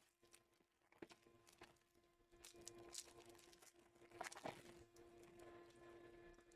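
Faint crinkling and tearing of trading-card packaging as sealed Panini Prizm packs and boxes are handled and opened, with scattered light clicks and two short rustles in the middle, over a steady low electrical hum.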